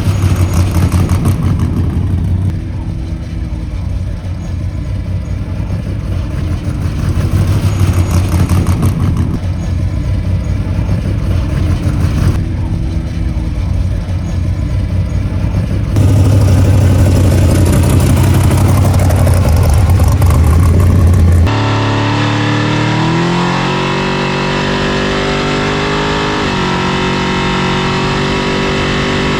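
Off-road race vehicle's engine running and revving, heard in several segments that change abruptly. Near the end the sound switches to a steadier engine note that climbs in pitch, then holds.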